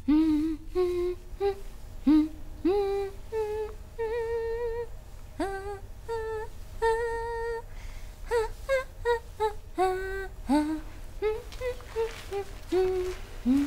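A woman humming a sing-song tune in short notes, most of them scooping up into their pitch and a few held longer.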